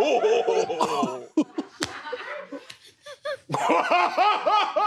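A man's exaggerated, theatrical rich-man laughter: a cartoonish guffaw, a brief lull, then a loud supervillain-style cackle starting about three and a half seconds in.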